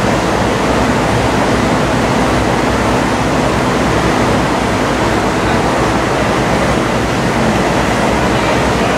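Steady city street noise: a constant, even roar of traffic with no distinct events.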